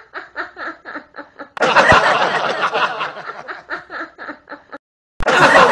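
Hearty laughter: a run of quick, rhythmic laugh pulses, then a louder, fuller burst of laughing from about a second and a half in that cuts off abruptly near the end.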